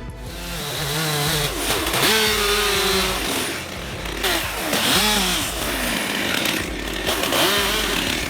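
Chainsaw running, its engine pitch rising and falling repeatedly as it is revved.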